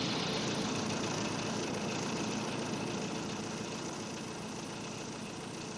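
Piston aircraft engines running steadily, the sound slowly fading away.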